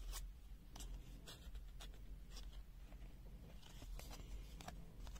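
Faint handling noise: scattered light scratches and clicks, about a dozen, irregularly spaced, as a cardboard pliers backing card is picked up and turned over by hand.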